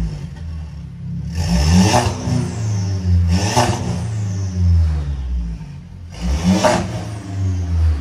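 Mercedes-Benz E250's 2.0-litre turbocharged four-cylinder revved through a downpipe and a custom exhaust with a Varex valve: three sharp rev blips, about two seconds in, at three and a half seconds and near the end, each falling back to idle.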